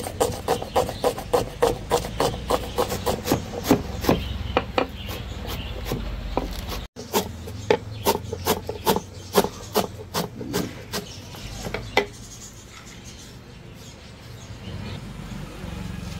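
Long kitchen knife chopping on a wooden cutting board, slicing onion and then leafy greens: quick, regular knocks about four a second, with a short break about seven seconds in. The chopping stops about twelve seconds in.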